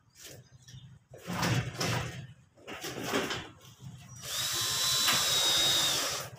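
Cordless drill driving a screw through a gypsum ceiling board into the steel ceiling frame: a steady high motor whine for about two seconds, starting about four seconds in and dropping slightly just before it stops. A few irregular knocks and scrapes come before it.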